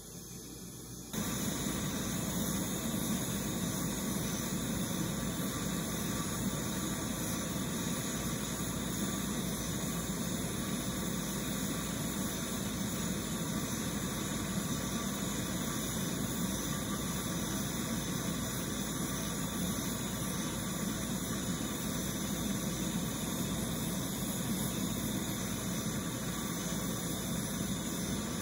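Two MAP-Pro gas torches burning into a refractory melt furnace, a steady roar of flame as they heat a melt dish of silver and flux. The roar steps up louder about a second in and then holds even.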